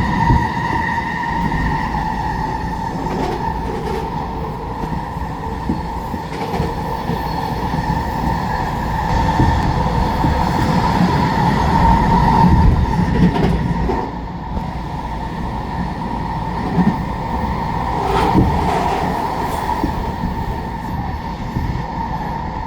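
SkyTrain train running along the guideway: a low rumble with a steady high whine over it, typical of the linear induction motors that drive these trains.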